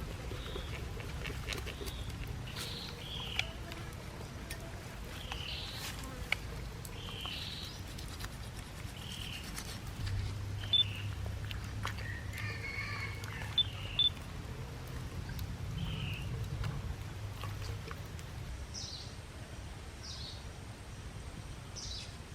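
Short, high animal chirps repeating every second or so over a steady low background rumble, with a few sharp clicks.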